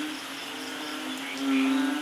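Steady rain hiss with insects chirring in a fast pulse. A low droning tone swells and fades, loudest about one and a half seconds in.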